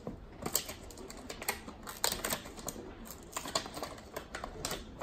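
Toy doll box and its small plastic accessories being handled, making scattered, irregular clicks and taps.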